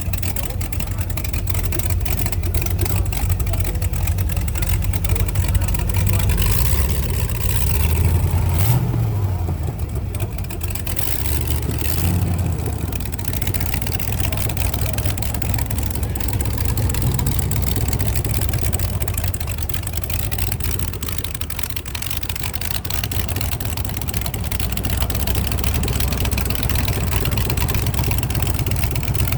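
Hot rod's engine idling at length, with two short revs about nine and twelve seconds in.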